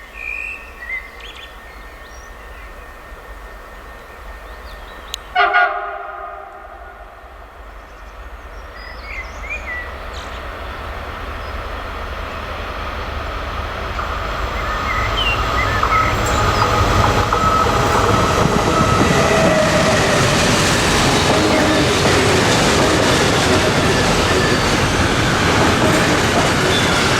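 A train sounds a short horn blast about five seconds in, then approaches and passes close by, the noise of its wheels on the rails building steadily and becoming loud.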